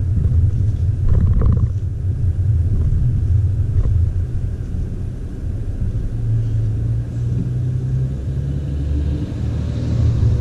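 Steady low rumble inside the cabin of a W177 Mercedes-Benz A200 on the move: its 1.33-litre turbocharged four-cylinder and the tyres on the road.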